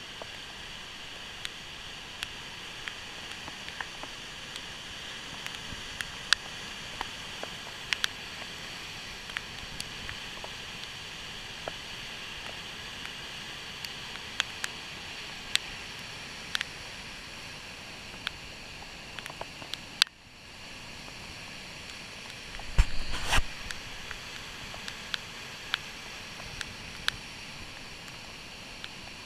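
Floodwater rushing steadily over a spillway, with sharp ticks every second or so and a brief louder rumble about two-thirds of the way in.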